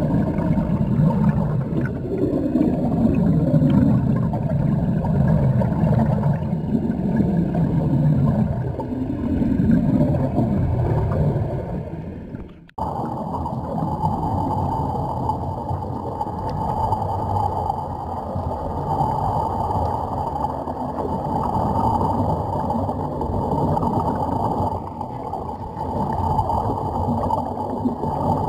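Underwater ambience: a low, churning rumble of water and bubble noise with wavering pitch, then, after an abrupt break about halfway through, a steadier mechanical hum with a constant tone.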